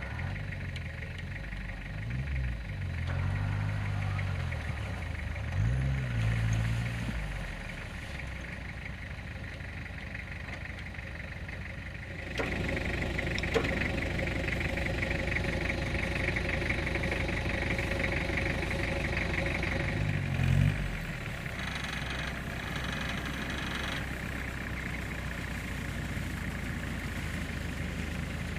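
Engines of off-road pickup trucks running on snow. The engine note rises and falls in the first several seconds as the vehicles move, then a steady idle sounds close by from a little under halfway through, with one brief rise about two-thirds of the way in.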